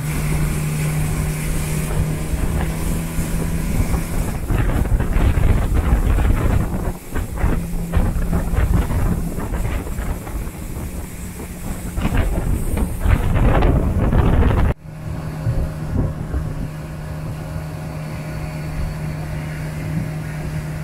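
Tour boat's engine running with a steady low drone, while wind buffets the microphone for much of the first part. An abrupt cut about fifteen seconds in drops the gusts, leaving the engine drone alone.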